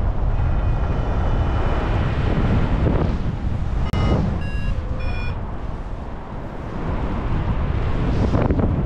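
Airflow rushing over the action camera's microphone during a paraglider flight, with a few short electronic beeps at slightly different pitches about four to five seconds in.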